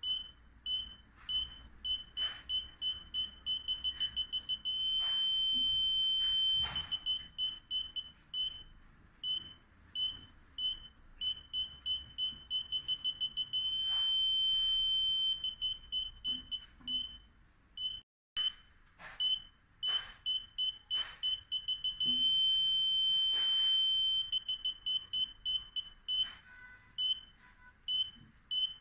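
Parking sensor buzzer beeping. The beeps come faster and faster until they run together into one steady tone, then slow down again, and this happens three times. The beep rate signals how close the obstacle is, and the steady tone means it is very close.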